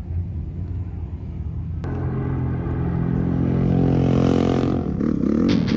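A vehicle engine rumbles low, then about two seconds in it comes in louder with a steady, pitched engine drone that builds for a few seconds.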